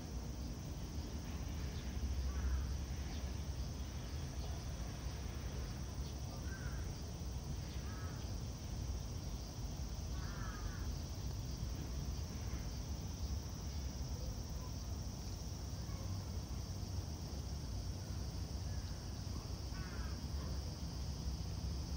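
Short bird calls, about six of them spread out at intervals, over a steady low rumble of outdoor background noise.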